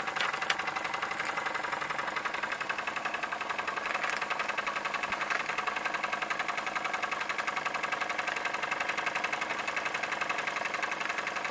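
Toy steam engine running under steam at speed with a fast, even mechanical beat, together with the belt-driven line shaft and toy drill press it powers.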